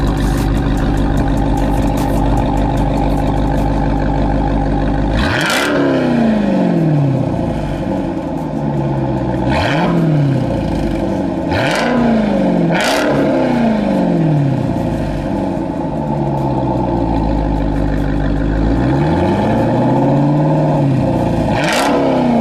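Jeep Grand Cherokee SRT8's HEMI V8 idling, then revved in several sharp throttle blips, the first about five seconds in, the revs shooting up and falling back to idle each time.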